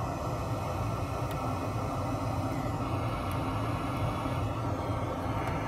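Steady mechanical background hum and rumble, unchanging throughout, with a couple of faint light ticks.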